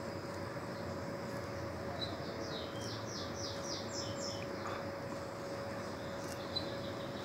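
A high-pitched animal call: a quick run of about eight whistled notes lasting about two seconds, with a single short chirp before it and another near the end, over a faint steady hum.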